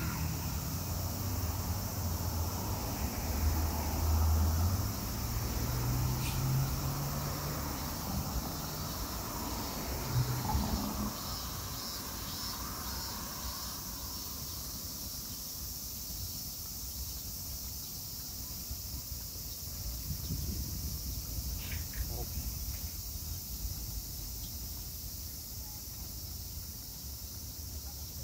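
Cicadas singing in a steady, high-pitched chorus. A low rumble underneath through roughly the first ten seconds is the loudest part and then fades away.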